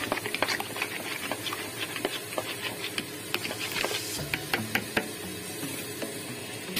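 Eggs being beaten by hand in a metal bowl: the utensil clicks against the bowl's side in quick, irregular strokes.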